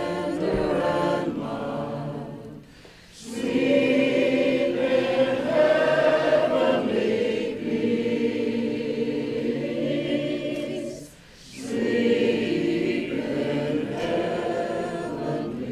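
A group of voices singing together in harmony, holding long notes, with two short breaks about three seconds and eleven seconds in.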